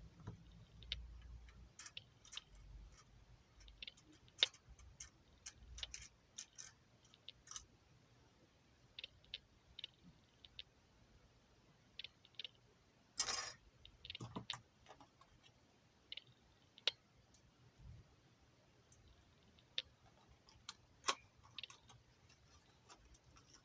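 Scattered light clicks and taps of an ARES L85A3 airsoft rifle's parts being handled and worked on by hand during a spring change, with one longer scrape about thirteen seconds in.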